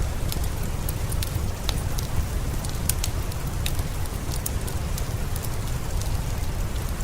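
Steady rain with a low rumble under it, mixed with a wood fire crackling in frequent short, sharp snaps.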